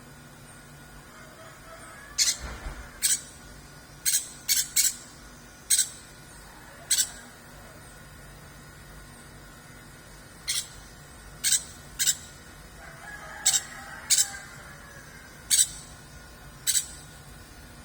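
Kept songbird giving about fourteen short, sharp, high chirps at irregular intervals, with a fainter rooster crow in the background about three-quarters of the way through.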